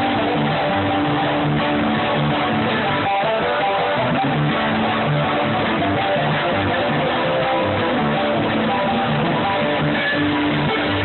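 Live bluegrass band playing, strummed guitar prominent over a steady bass line.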